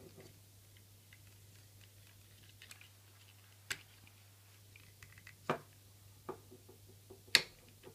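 Parts of a Masterpiece Optimus Prime transforming toy clicking and clacking as they are handled and moved into place: a few separate sharp clicks, the loudest near the end.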